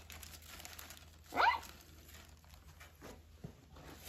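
Hands scooping wet sand in a plastic bag inside a bucket: soft scattered rustling and crinkling of the bag. About a second and a half in, a child's voice gives one short rising squeal.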